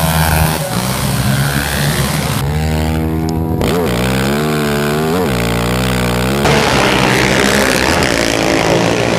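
Racing quads accelerating together off the start line. About two and a half seconds in, one close single-cylinder four-stroke quad engine, a Honda TRX450R heard onboard, revs up and drops back three times as it pulls through the gears. Near the end several engines are heard together at a distance again.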